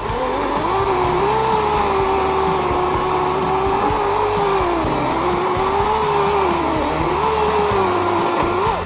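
Greenworks 40V cordless electric chainsaw cutting through a felled tree trunk, the motor's whine steady but dipping and recovering several times as the chain bites under load.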